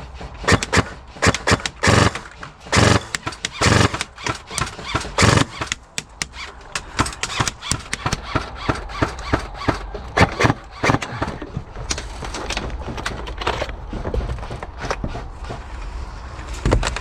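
Airsoft guns firing in irregular single shots and short rapid bursts, with sharp cracks, during an exchange of fire in a close-quarters game.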